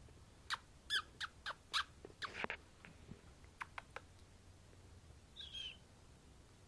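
Kittens playing on a cat tree: a quick run of sharp taps and clicks over the first two and a half seconds, a few more about a second later, then a short high chirping mew about five and a half seconds in.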